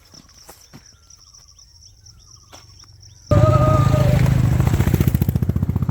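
Faint bird chirps and a few clicks, then about three seconds in a motorcycle engine cuts in suddenly, loud and close, running with a rapid even firing pulse.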